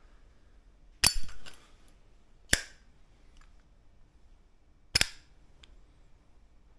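Zippo lighter's metal lid clicking open and snapping shut during one-handed flip tricks: three sharp metallic clacks, about a second in, near two and a half seconds, and about five seconds in, each with a brief ring.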